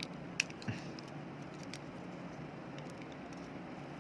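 A few small clicks and taps from handling a smartphone battery pack while its plastic wrapping is being removed, the sharpest about half a second in, over a steady low background noise.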